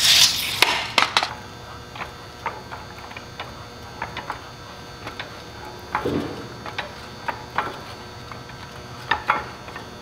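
A steel tape measure retracting with a quick rattle, then scattered clicks and knocks from a hydraulic floor jack being set under the tractor's front axle and pumped by its long handle.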